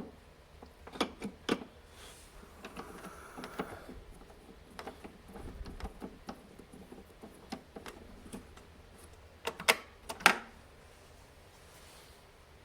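Scattered clicks and knocks of hands fitting a MIG welding gun back onto a welder, with a few louder knocks close together near the end.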